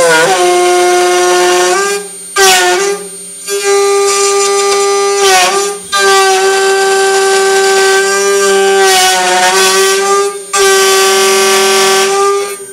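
End mill of a 3040 desktop CNC router taking a 3 mm deep pass through a metal plate at 1050 mm/min, giving off a loud, steady, high-pitched squeal from the cut. The squeal breaks off briefly about four times and resumes with a short dip in pitch.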